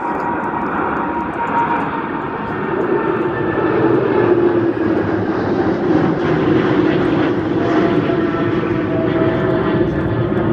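Boeing 777 freighter's two GE90 turbofans at takeoff thrust as the jet climbs out and passes overhead: a loud roar with a steady hum running through it, growing louder over the first few seconds.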